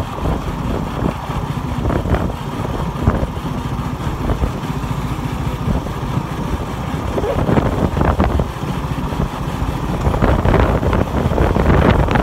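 Motorcycle engine running steadily while riding along a road, with road noise; it grows louder in the last couple of seconds.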